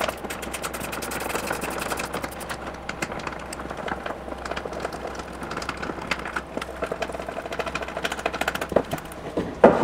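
Rapid clicking and rattling of a small hand tool working loose plastic and metal parts of a Tesla Model X front latch assembly, thickest in the first couple of seconds, with one sharper click near the end.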